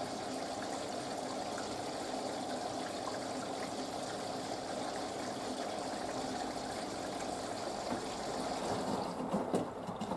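Water running steadily inside a Panasonic washing machine on its wool cycle, with a few clicks near the end as the flow stops.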